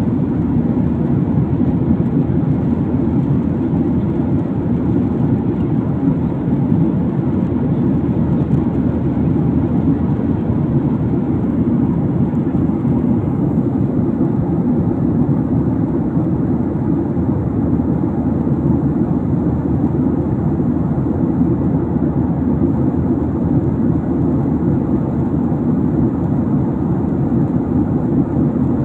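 Steady engine and airflow rumble of an airliner in flight, heard from inside the passenger cabin. It is even and unchanging throughout, mostly low in pitch.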